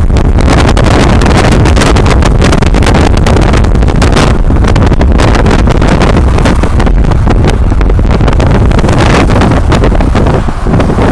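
Heavy wind buffeting the microphone at the window of a moving car, over the low rumble of road noise. It eases slightly near the end.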